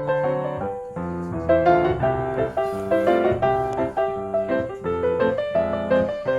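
Background piano music: a gentle melody over chords, played at a steady level.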